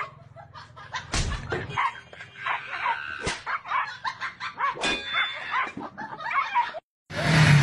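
A few sharp metallic clangs of a tin can knocked about on the ground, amid short high-pitched squeals and yelps from a monkey and a puppy scuffling.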